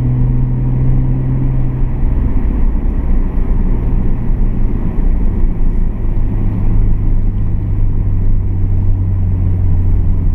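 Nissan Skyline R32 GT-R's twin-turbo RB26DETT straight-six engine running under way, heard from inside the cabin, with road and tyre noise underneath. It is a steady drone that drops slightly in pitch about two seconds in and then holds steady.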